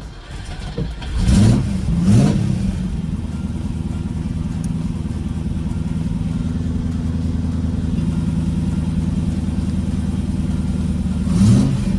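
Rover SD1 Vitesse's 3.5-litre V8 starting up: it catches about a second in, is blipped twice, then idles steadily before two more revs near the end. No belt screech, now that the fan belt has been tightened.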